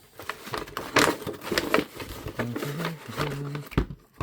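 Packaging being opened by hand: cardboard and plastic packing rustling and crinkling in quick irregular strokes, with a short low hum partway through.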